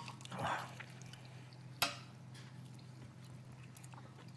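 Knife and fork clicking against plates as food is cut, with one sharp clink a little under two seconds in, over a low steady hum.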